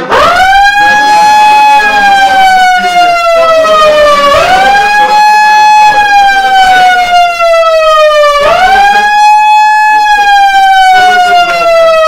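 Electronic siren of a handheld megaphone, switched on suddenly and sounding very loud. Each cycle leaps up in pitch, then slides slowly down over about four seconds, and the cycle repeats three times.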